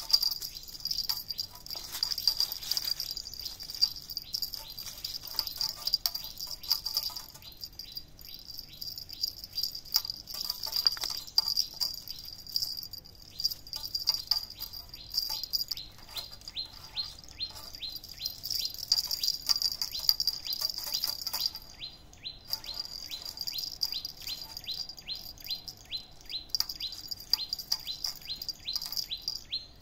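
Outdoor insect drone, a steady high-pitched hiss, with a bird chirping in a rapid even series of short calls, about four a second, from about halfway through. Scattered short taps and scuffs sound over it.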